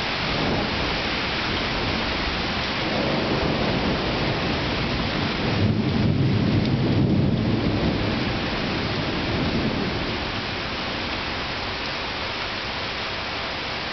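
Steady rain with a long roll of thunder that builds from about three seconds in, is loudest around six to seven seconds, and dies away by about ten seconds.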